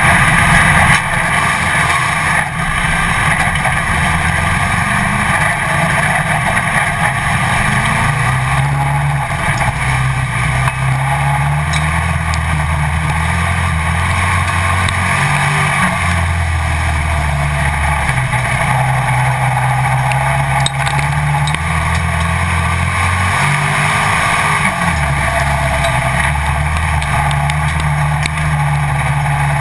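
Onboard sound of a pro stock dirt-track race car's engine at racing speed, loud and steady, its note climbing and dropping again every few seconds as the car laps the oval.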